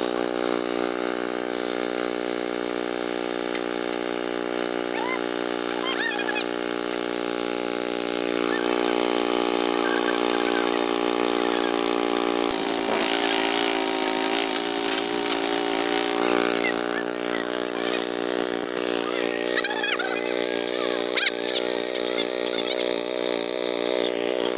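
Robel petrol-engined rail drilling machine running steadily as its bit bores a hole through the web of a steel rail. A hissing metal-cutting noise joins in for several seconds in the middle, and from about halfway the engine note wavers under the drilling load.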